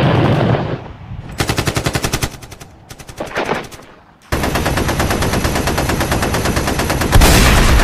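Machine-gun fire sound effect: rapid automatic fire in two short bursts, then one long unbroken burst from about four seconds in that grows louder near the end. A low rumble dies away in the first second.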